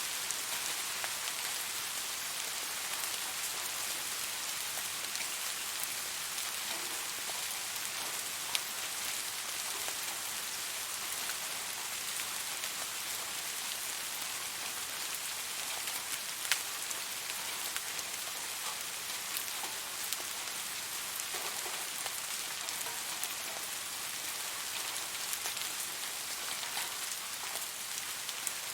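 Steady rain falling on a surface, an even hiss with scattered individual drops ticking sharply, two louder drop hits standing out.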